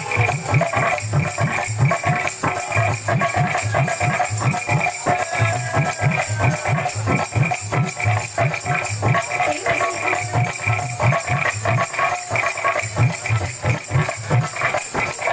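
Kirtan music: barrel hand drums beaten in a steady, driving rhythm with brass hand cymbals clashing and jingling on top.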